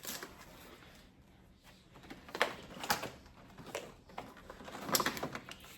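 Food packages being handled and set down on refrigerator shelves: a few light knocks and clicks spaced about a second apart.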